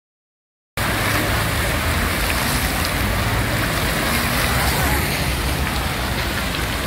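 Silent at first, then about a second in the sound cuts in: the steady splashing and hiss of many fountain jets falling back into a basin, with a low rumble underneath.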